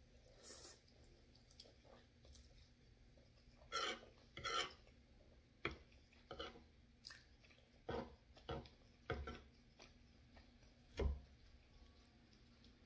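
Faint close-up chewing and mouth smacks of someone eating a mouthful of fettuccine, in short scattered bursts with a few louder ones, and the odd fork tap near the end.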